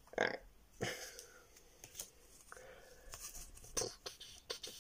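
Stack of Pokémon trading cards handled in the hand: a string of short paper rustles and light taps as the cards are squared and shifted, the loudest just after the start.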